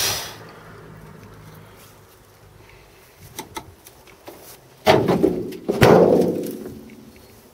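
A Triumph Spitfire's one-piece, front-hinged tilting bonnet being lowered and shut: two metallic bangs about a second apart, the second ringing on for about a second.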